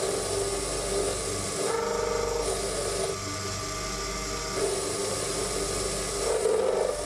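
Proxxon PD 250/e mini lathe running with a steady motor hum while a boring bar cuts inside a spinning chromoly steel part. Rasping cutting noise comes in about two seconds in for under a second, and again from about four and a half seconds on.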